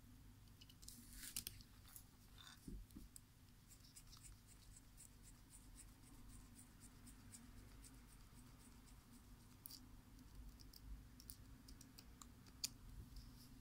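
Faint scratching and small ticks of a precision screwdriver turning a tiny screw in the plastic housing of a Microsoft LifeCam Cinema webcam, with a few sharper clicks, one near the end.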